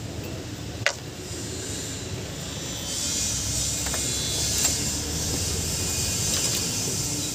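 Kia Bongo JT engine running, a steady low hum with a single sharp click about a second in and a hiss that comes up about three seconds in. Its water pump has play in the shaft, which the owner says makes it sound 'ragok-rok', a sign of a failing pump that risks overheating.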